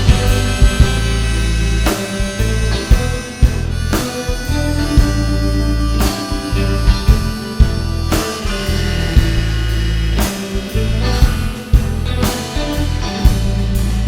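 Live rock band playing an instrumental passage: harmonica carrying the lead over electric guitars, bass and a drum kit keeping a steady beat.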